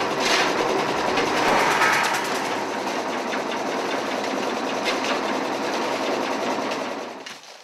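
Ice-crushing machine grinding block ice into crushed ice, a steady, dense, fast rattling clatter that fades out near the end.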